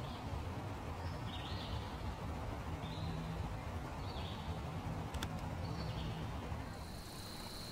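Outdoor ambience: short high chirps repeating about once a second over a low rumble, with a single click about five seconds in and a steady high-pitched tone setting in near the end.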